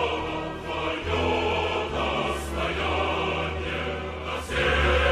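Choral music: a choir singing held chords over sustained low bass notes.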